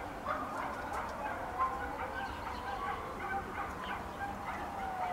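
Many birds calling at once: a dense chorus of short overlapping chirps and whistles, with a longer falling whistle near the end.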